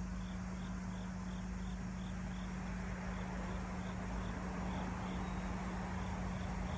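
An insect chirping steadily, about three short high chirps a second, fading out near the end, over a steady low hum.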